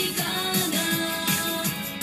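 Pop song with singing playing through a car stereo; the sound is thin, with almost no bass.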